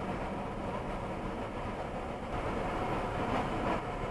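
Engine idling with a steady low rumble and a faint constant whine, heard from inside a car.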